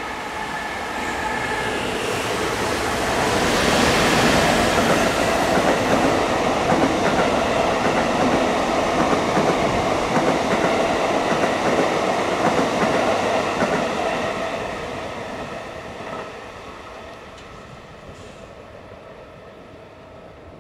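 Freight train passing: a JR Freight EF210 electric locomotive hauling new Sagami Railway 21000-series electric cars. The rumble of the wheels on the rails grows louder over the first few seconds, stays loud for about ten seconds, and fades away from about 14 seconds in.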